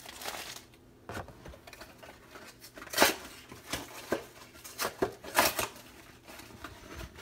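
Cardboard snack box being torn open by hand: a series of short ripping and rustling noises, the loudest about three seconds in and again around five and a half seconds.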